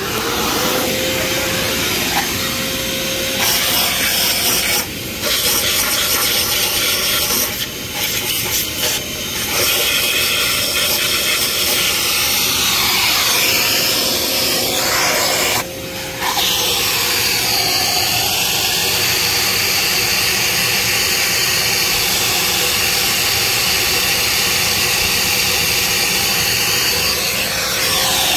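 High-speed rotary tool scrubbing an aluminum cylinder head of a 5.3 V8, a steady whine over harsh abrasive noise. It eases off briefly a few times, about five, eight and sixteen seconds in.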